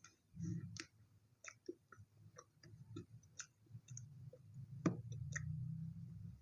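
Close-up chewing of chocolate toast: irregular soft wet mouth clicks and smacks over a low rumble, with one louder click about five seconds in.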